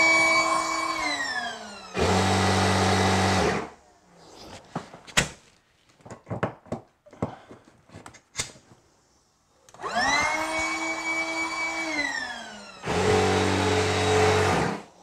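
Electric inflatable-boat pump topping up a tube toward 250 millibar, running twice. Each time its whine rises as it starts, holds, then drops in pitch, and ends in about a second and a half of loud rushing air with a low hum before it stops. Light clicks and handling knocks fall in the quiet stretch between the two runs.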